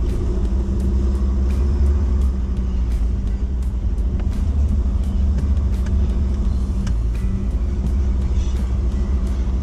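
A four-wheel-drive vehicle's engine and drivetrain rumbling steadily as it crawls over a rough dirt track, heard from inside the cabin, with frequent short knocks and rattles as it bumps along.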